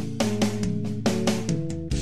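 Instrumental background music: sustained pitched notes over a bass line, with sharp drum hits several times a second.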